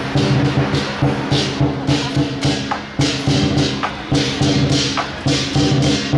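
Lion dance percussion: a drum and gong keep up a steady beat while cymbals clash about twice a second.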